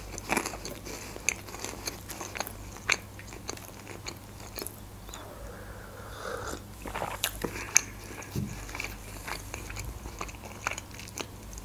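Close-miked chewing of fried pastry, with many small crunchy clicks and wet mouth sounds. About six seconds in, a drink from a glass mug of milky coffee briefly breaks the chewing.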